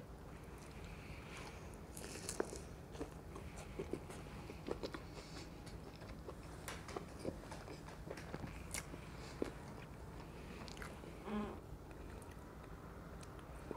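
A person chewing a crispy fried green chilli pakora (gram-flour batter fritter) with ketchup, with quiet, irregular crunches and mouth clicks.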